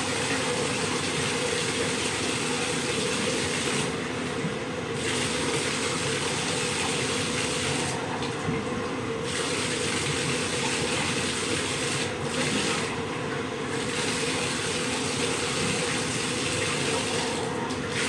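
Bathtub tap running steadily into the tub while water is poured from a plastic bowl over a small dog. The hiss of the water dulls briefly several times.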